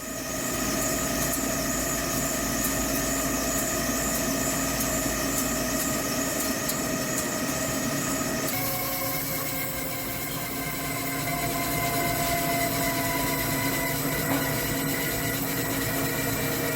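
Hankook PROTEC-9NC heavy CNC lathe running, a steady machine hum with several held tones. The sound shifts abruptly about eight and a half seconds in.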